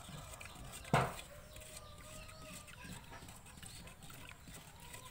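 A single sharp knock about a second in, then faint drawn-out chicken calls in the background.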